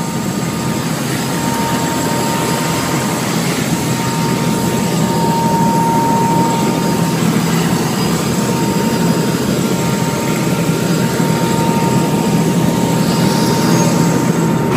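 Helicopter turbine engine and main rotor running, heard loud from inside the cabin: a steady whine over dense rotor noise.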